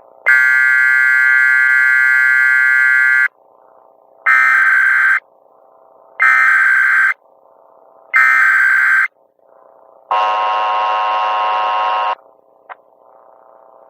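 Emergency Alert System broadcast tones. A harsh, steady tone lasts about three seconds. Then come three short screeching EAS data-header bursts of about a second each, evenly spaced. Last comes the two-tone EAS attention signal for about two seconds, the signal that an emergency message follows.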